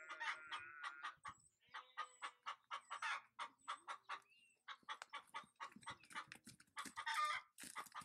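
Chickens clucking: a quick run of short clucks, with a longer pitched call that ends about a second in.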